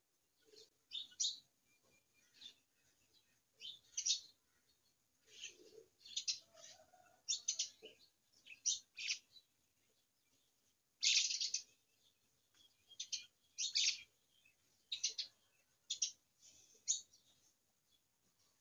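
Small birds chirping: short high calls repeated every second or so, some in quick pairs.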